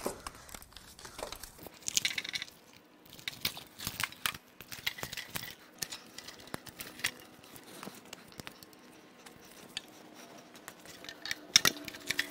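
A cut-up engine wiring harness being pulled and worked free by hand: its plastic loom and connectors rustle, crackle and click irregularly. There is a sharp knock near the end.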